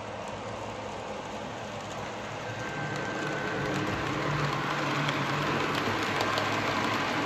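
HO scale model steam locomotive and its hopper wagons running along the track: a steady rolling rumble with a light hum that grows louder as the train comes out of the tunnel and nears, with light clicks of the wheels in the second half.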